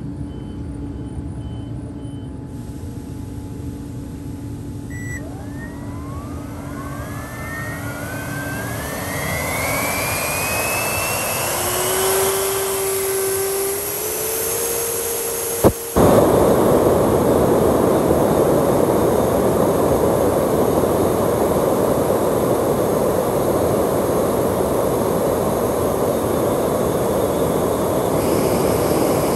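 Electric ducted fan model jet with an afterburner running on a test stand. Its whine rises steadily in pitch as the fan spools up. A sharp pop comes about 16 seconds in, followed by a loud, steady jet-like roar.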